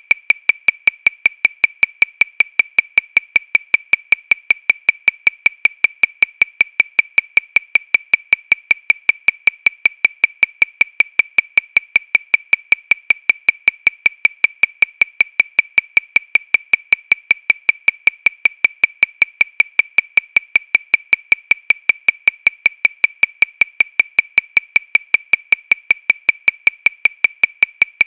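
Metronome clicking at 314 beats per minute, about five short, high clicks a second, steady and evenly spaced, every click alike with no accented beat.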